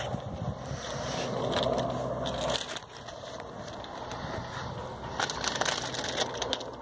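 Distant helicopter approaching, a low steady drone, under wind buffeting and crackling on the microphone that is loudest about five seconds in.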